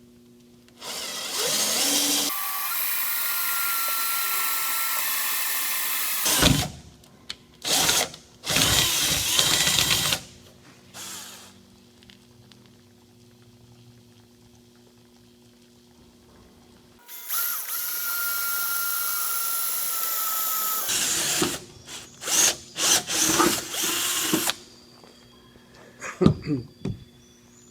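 Power drill boring holes, run in several long bursts with a steady motor whine through each, then a few short stop-start pulls near the end, with knocks between runs.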